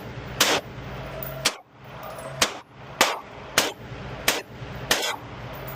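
Walther PDP Compact pistol firing a string of about seven shots, roughly one every half second to a second, each a sharp crack with a short ring after it.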